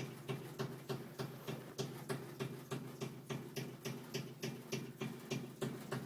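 Air conditioner unit making an odd, rhythmic ticking thump, about three a second, over a steady low hum. The thump can be felt through its copper pipe, which vibrates, though the owner says the pipe itself is not the source.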